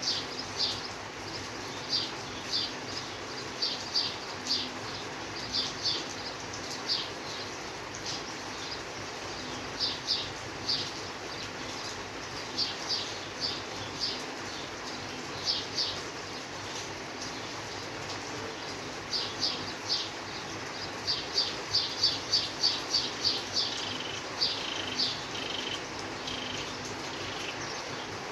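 Steady rain with a bird calling over it: short high chirps in groups of two to four, with a longer quick series of chirps near the end.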